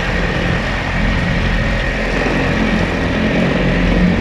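Small outboard motor on a fishing kayak running steadily, driving the kayak across choppy water.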